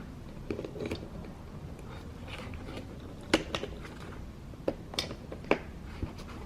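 A plastic electrical connector being worked loose from a car's door lock push-button switch: light handling rustle, then a handful of short, sharp plastic clicks in the second half.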